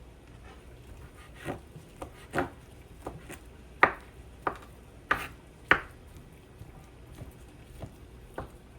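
Kitchen knife chopping food on a cutting board: a dozen or so irregular knocks of the blade, the loudest a little past the middle.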